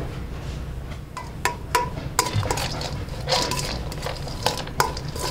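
Metal utensil clinking and scraping against a stainless-steel mixing bowl as salad greens are tossed with dressing: irregular clinks starting about a second in, each with a short metallic ring.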